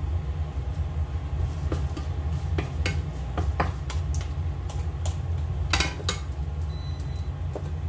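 Wooden spatula scraping and knocking against a frying pan as fried rice is stirred, with a few irregular clicks and scrapes. A steady low hum runs underneath.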